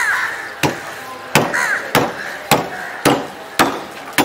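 Large curved knife striking a whole fish against a wooden chopping block in sharp, evenly spaced knocks, about one every 0.6 seconds.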